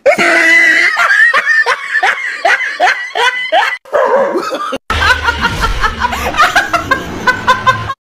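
People laughing in quick, repeated ha-ha pulses. The sound cuts out briefly about five seconds in, and a second bout of laughter follows over a low hum.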